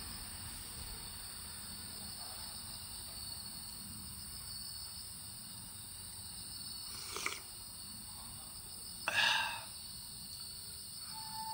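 Steady outdoor ambience with a continuous high insect trill, broken by two short sounds about seven and nine seconds in.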